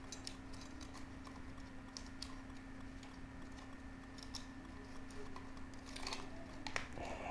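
Light, scattered plastic clicks and taps as the hands work the white propeller guards and arms of a small toy quadcopter drone. A faint steady hum sits underneath.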